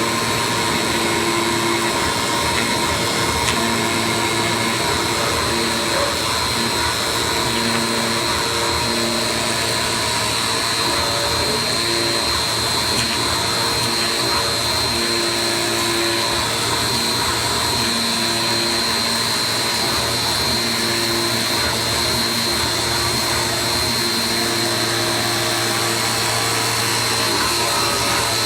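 AOKE flatbed digital cutter running: a steady, loud whine from its vacuum hold-down blower, with short humming tones that start and stop every second or so as the cutting head moves.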